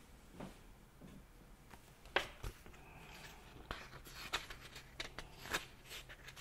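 Faint rustling and soft clicks of a picture book's paper pages being handled and turned.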